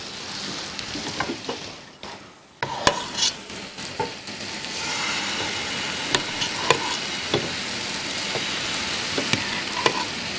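Food sizzling in frying pans on a gas hob: crêpe batter cooking in a lightly buttered non-stick pan, with apple pieces frying in butter in a second pan. The sizzle drops almost away about two seconds in, then comes back and holds steady, with a few light clicks of pan and utensils.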